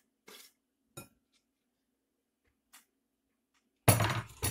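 A wooden board scraped and tapped against a glass bowl in a few short strokes in the first second, knocking grated processed cheese into it. About four seconds in the board is set down on the wooden table with a loud clatter, followed by a second knock.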